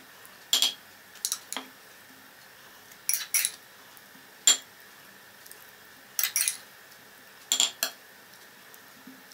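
A metal spoon clinking against a ceramic bowl and a glass baking dish while thick sauce is spooned out: about a dozen short clinks in small clusters every second or two.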